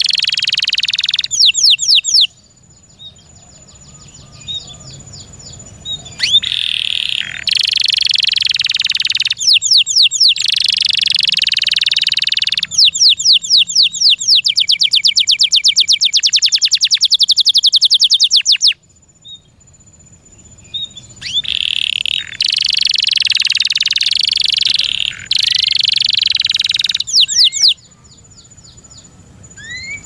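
Domestic canary singing in loud phrases of rapid rolls and trills, including a long, fast trill of repeated notes for several seconds in the middle, separated by pauses of a few seconds.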